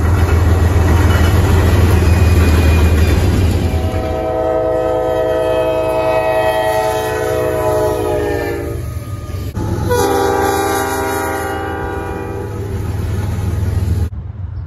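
Diesel freight locomotives passing: a heavy engine rumble, then a multi-note air horn sounding a long blast that falls slightly in pitch near its end. After an abrupt cut a second horn blast sounds, and the sound cuts off abruptly near the end.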